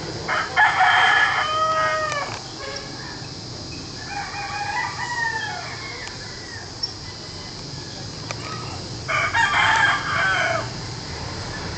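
Roosters crowing three times: a loud crow near the start, a fainter one in the middle and another loud one near the end, each call falling in pitch as it ends.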